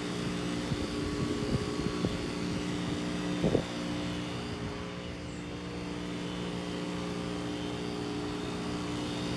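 Residential heat pump outdoor units running with a steady hum made of several low tones, while one unit, a Heil heat pump, is in its defrost cycle. A brief short sound rises over the hum about three and a half seconds in.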